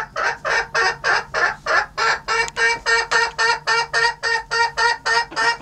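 Bantam Cochin hen scolding loudly: a fast, even run of clucking calls, about four a second. She is agitated by other hens inspecting the nest.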